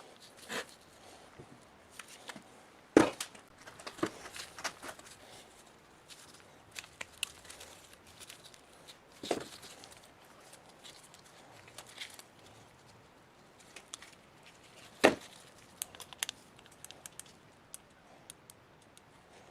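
Scattered clicks, taps and rustles of tools and parts being handled at a workbench, with two sharp knocks, one about three seconds in and one near fifteen seconds.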